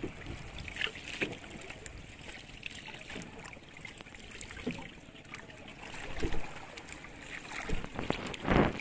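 Water sloshing around a small wooden boat, with several short splashes or knocks over a steady noisy background, the loudest near the end.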